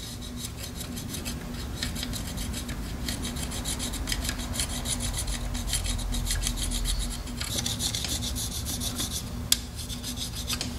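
Carbide gasket scraper rasping old gasket sealer off the water pump mounting surface of a Chevy Cruze's 1.4 turbo engine, in quick repeated strokes.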